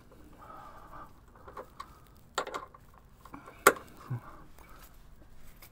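Two sharp metallic clicks about a second and a half apart, the second louder, from a hand wrench on a rocker-guard bolt as its tightness is checked, followed by a soft low knock.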